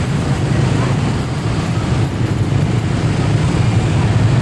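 Steady low rumble of a CC201 diesel-electric locomotive's engine working under load as it approaches, mixed with motorbike engines close by.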